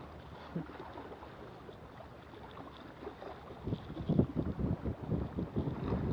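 Wind buffeting the microphone in irregular low gusts, growing stronger and gustier from about halfway through, over water washing against the jetty's granite rocks.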